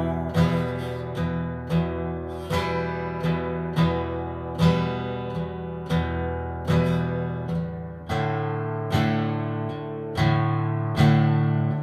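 Guitar strummed in a steady rhythm, about one and a half strums a second, as an instrumental break between sung lines. The chord changes about eight seconds in.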